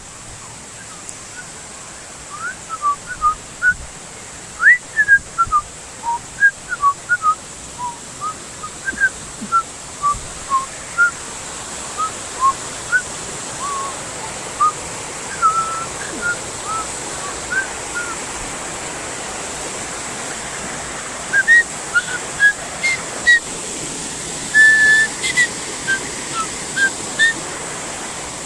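Short, high whistled notes, scattered irregularly with a few brief glides and one longer held note near the end, over a steady rushing noise.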